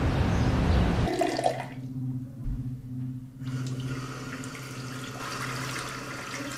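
Bathroom sink tap running a thin stream into the basin, over a steady low hum in the room. Before it comes about a second of loud, even noise that cuts off suddenly.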